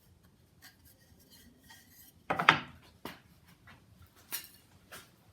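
Thin wooden strips knocking and rubbing together as they are handled: scattered light clicks, a short clatter about two and a half seconds in, then a few single knocks.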